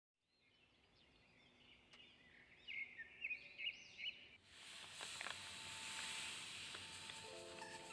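Birds chirping in short high trills for a few seconds, then a steady hiss takes over about halfway through.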